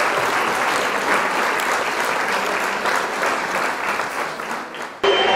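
Applause from a crowd: dense, continuous clapping that fades down near the end and is cut off abruptly about five seconds in.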